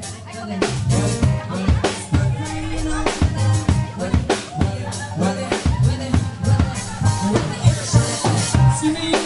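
Live band playing a dance number: a drum kit beat with bass notes and keyboard.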